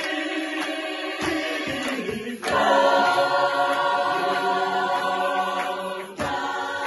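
A cappella choir singing in close harmony, with a sharp beat marked about every 0.6 seconds. The voices swell onto a louder chord about two and a half seconds in and break off briefly near the end before coming back in.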